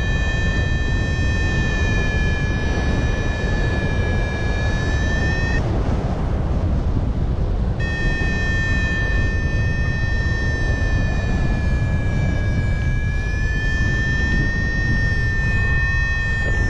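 Paraglider variometer sounding a continuous high sink tone, dipping slightly in pitch and breaking off for about two seconds midway, as the glider descends in sinking air. Wind rushes on the microphone underneath.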